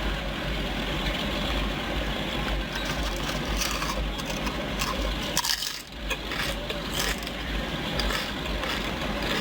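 Crunchy PopCorners chips crackling and crunching as they are scooped and eaten, in scattered bursts over a low steady hum.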